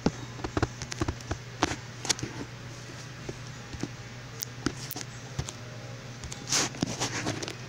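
Scattered light taps and clicks of fingers on a tablet's touchscreen and casing over a low steady hum, with a short rustle about six and a half seconds in.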